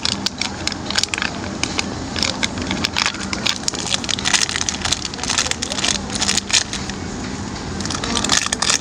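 Close-miked rustling and crinkling of handled material, a dense run of sharp crackles, over a faint steady hum.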